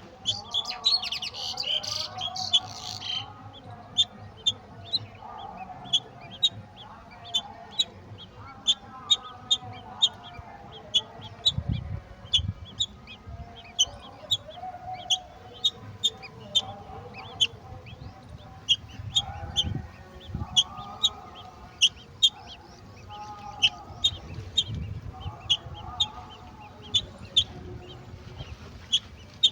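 Birds chirping: short, high chirps repeat about once or twice a second, with a burst of dense, high calling about a second in. A few low thumps come in later.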